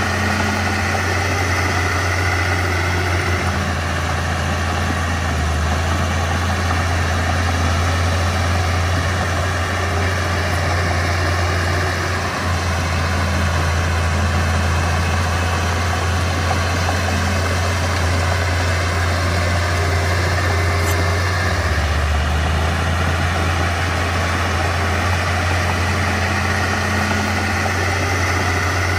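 Mitsubishi BD2F bulldozer's diesel engine running steadily with a loud, even low drone.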